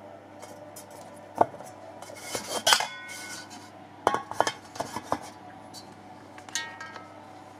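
Aluminium ring and tube parts being handled: a series of light metal-on-metal knocks and clinks, each ringing briefly, with a short scrape, over a faint steady low hum.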